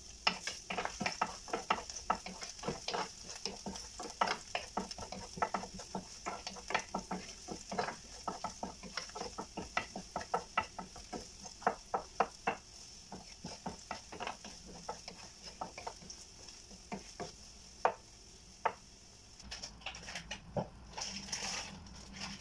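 Food sizzling in hot oil in a ceramic-coated frying pan while a wooden spatula stirs it, scraping and knocking against the pan many times over a steady hiss. The knocks thin out in the last third and stop a few seconds before the end.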